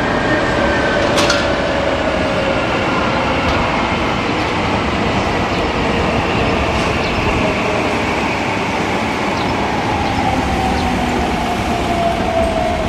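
A heavy vehicle running: a steady, loud rumble with a thin whine that slowly falls in pitch over several seconds, and a few light clicks.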